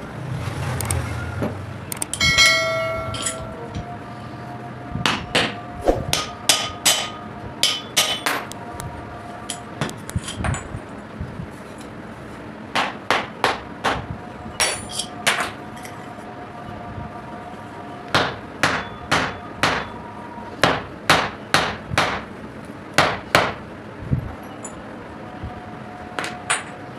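Hammer blows on metal in quick runs of several strikes with pauses between, each leaving a short metallic ring, as a washing machine motor is knocked apart to get at its 6202 bearings. One strike about two and a half seconds in rings out longer than the rest.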